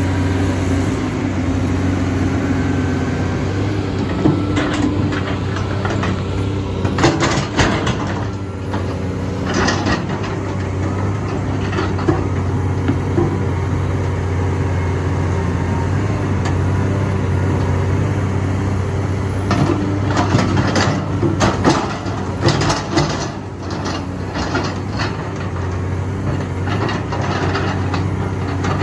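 Heavy earthmoving machine's diesel engine running steadily, with bursts of clanks and knocks from about four to ten seconds in and again from about twenty to twenty-five seconds in.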